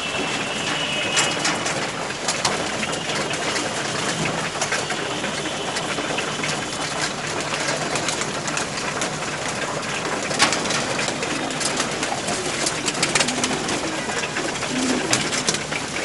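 A crowded cage of domestic pigeons at feeding time: low cooing over a dense flutter of wings and many sharp clicks of beaks and feet on the wire floor and feed trays, one click standing out about ten seconds in.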